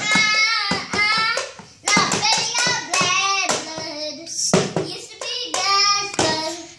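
A young boy singing a song solo, in phrases of held, bending notes, stopping near the end.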